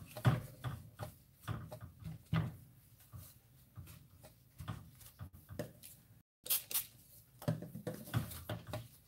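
Crumpled paper towel dabbed and pressed onto wet watercolour paper to lift pigment: irregular soft taps and crinkling rustles. The sound cuts out for a moment about six seconds in, then a brighter rustle follows.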